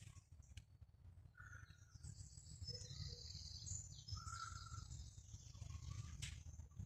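Faint birdsong: high chirps and trills from about a second and a half in until near the end, over a low steady rumble.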